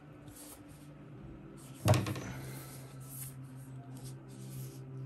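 Hands handling a smartphone retail box: soft rustling and one sharp knock with a brief ring about two seconds in.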